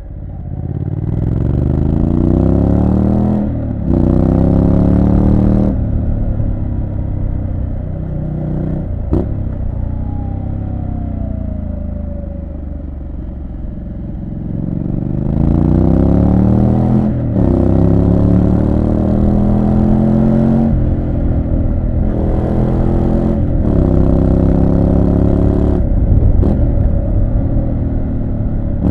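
Triumph Street Scrambler 900's 900 cc parallel-twin engine pulling hard through the gears, its pitch climbing in each gear with short breaks at the upshifts. Between two such runs it settles into lower, steadier running while the bike rolls off.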